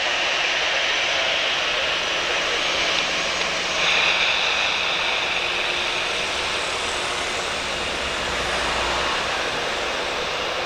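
Airbus A320-214's CFM56 jet engines running steadily as the airliner rolls along the runway, a continuous engine rush that grows slightly louder about four seconds in.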